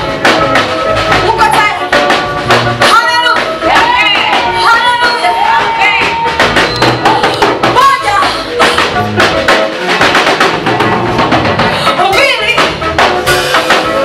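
Live gospel worship music: a woman singing lead into a microphone over a band with a drum kit keeping a steady beat.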